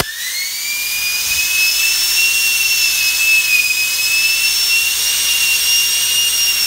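Homemade miniature turbocharger's impeller wheel spun by compressed air from a blow gun: a high whine that rises in pitch over the first couple of seconds as the wheel spins up, then holds steady over the hiss of rushing air.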